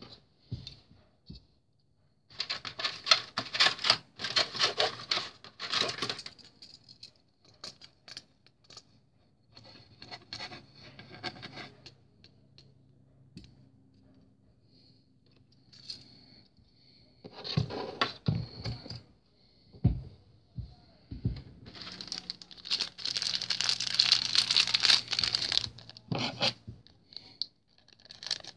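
Clear plastic parts bags crinkling and rustling as they are handled, in four bursts with quieter gaps between.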